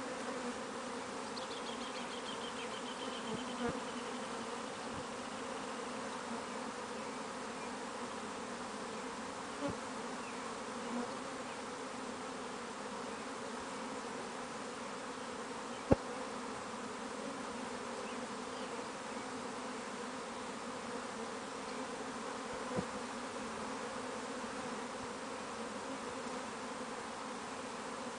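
A honeybee swarm buzzing as it moves into a wooden Langstroth hive box: a steady, dense hum of many bees flying and crowding at the entrance. One sharp click about halfway through.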